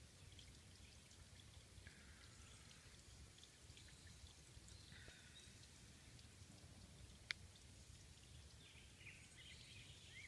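Near silence: faint outdoor ambience with a low rumble, a few distant bird chirps now and then, and one sharp click about seven seconds in.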